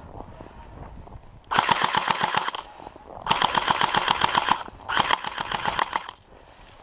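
Airsoft gun firing three full-auto bursts, each about a second long: a rapid, even rattle of shots.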